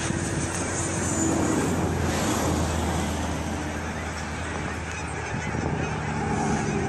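A large flock of geese honking together in a dense, continuous chorus, with a low steady hum underneath.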